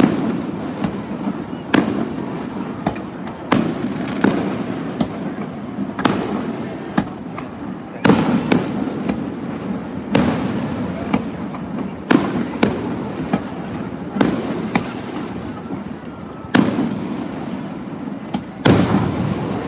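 Aerial fireworks display: about a dozen heavy booms from shells bursting overhead, one every second or two, each trailing off with an echo, with smaller pops and crackling between them.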